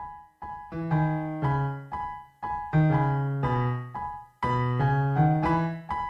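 Background music: a keyboard piece of struck notes and chords, each fading away before the next, about two or three a second.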